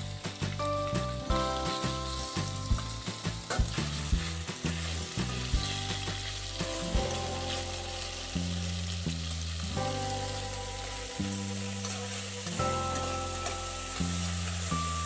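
Pork loin pieces frying in hot oil in a stainless steel pot, a continuous sizzle as they brown, with a few sharp knocks against the pot in the first few seconds as the meat goes in and is stirred. Background music plays underneath.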